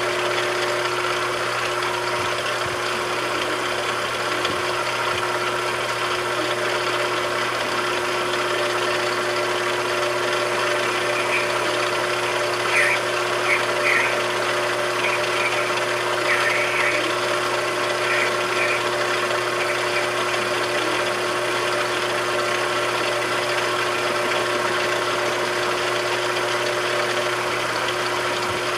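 A machine tool running with a steady, even hum. A handful of short, high squeaks come about halfway through.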